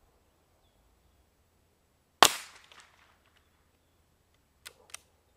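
A single shot from a Glenfield Model 25 .22 bolt-action rifle: one sharp crack about two seconds in that dies away within half a second. Two short clicks follow near the end.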